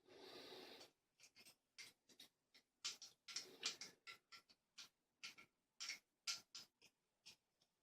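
Metal lock picks scraping and clicking inside a vintage Yale lever padlock as it is being picked: a short scrape at the start, then irregular small clicks, with a longer scrape about three seconds in.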